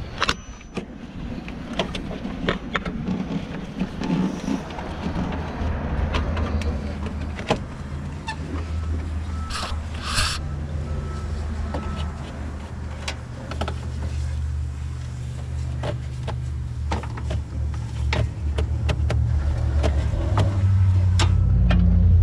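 Light clicks and knocks of hand work on parts under a truck's hood, over a steady low engine-like hum that grows louder near the end. Twice, about ten seconds in, there is a brief hiss.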